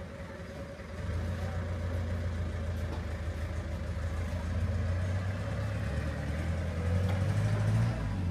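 An engine running with a low, steady hum. It grows louder about a second in and speeds up slightly near the end before easing off.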